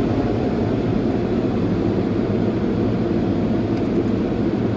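Automatic car wash machinery running with a steady low roar, heard from inside the car.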